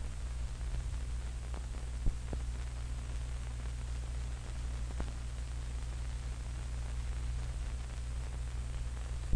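Old 16mm film soundtrack between lines of narration: a steady hiss and low hum, with a few faint clicks and one louder pop about two seconds in.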